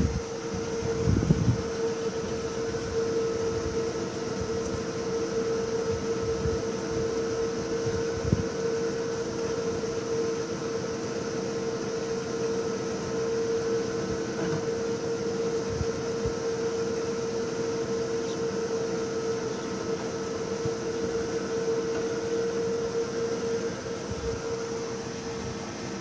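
Leonics Apollo SPN solar pump inverter cabinet running: a steady fan-like hum with a constant mid-pitched whine, with a few soft handling knocks in the first several seconds.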